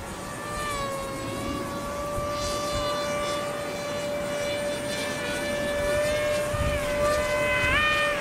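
Electric motors and propellers of RC foam model planes whining in flight. One steady high tone holds throughout while other tones slide up and down with the throttle, shifting most near the end.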